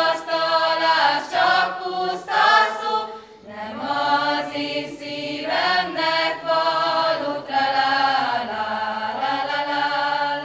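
A group of voices singing a Hungarian folk song unaccompanied, holding long notes in phrases, with a short breath break about three and a half seconds in.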